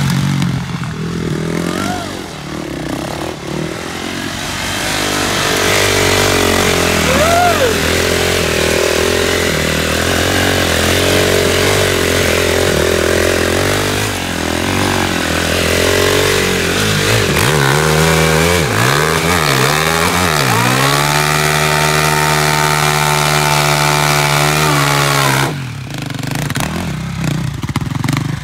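Sport quad's engine revving hard under a rider spinning and sliding it on dirt, ending in a burnout. The revs rise and fall repeatedly, then hold high and steady for about four seconds and cut off sharply near the end.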